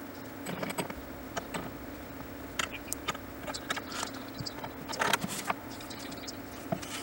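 Scattered light clicks, taps and paper rustles as a stack of paper is nudged and squared up between clamped wooden press boards, with a cluster of louder clicks about five seconds in.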